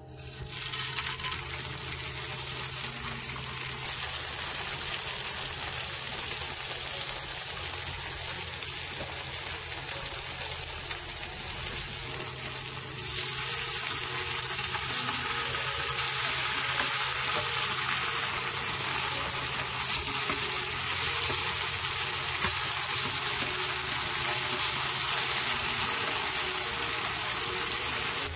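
Slices of tofu sizzling as they pan-fry in plenty of hot oil. The sizzle starts abruptly as the first slice goes into the pan and grows a little louder about halfway through.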